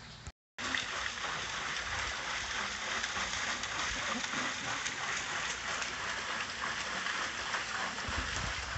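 Steady hiss of splashing water, dense and even with fine crackle, after the sound drops out for a moment near the start.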